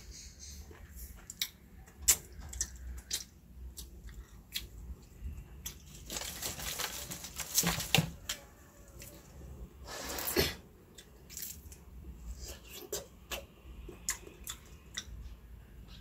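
Fresh lychees being peeled by hand and eaten: small sharp crackles and clicks of the bumpy skins being split and pulled off, with chewing between them. Twice, about six and ten seconds in, a longer rustle as the leafy lychee branches in the bamboo basket are handled.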